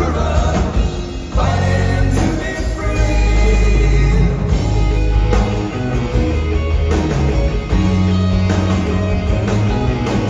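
Live rock band with two electric guitars, bass guitar and drums. A sung vocal line near the start gives way to an instrumental passage.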